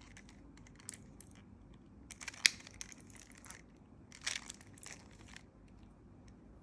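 Plastic speedcube layers clicking and rasping as the cube is turned quickly through a Ua perm with S moves, in short bursts of turns with the sharpest click about two and a half seconds in.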